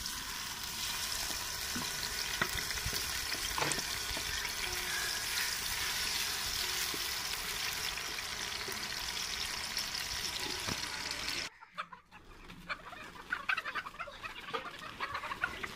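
Ground onions sizzling steadily as they fry in hot oil in an aluminium pot, stirred with a wooden spoon. The frying cuts off suddenly near the end and chickens are heard clucking.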